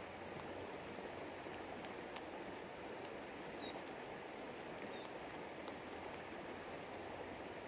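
River water rushing steadily, with a few faint ticks and two brief high chirps near the middle.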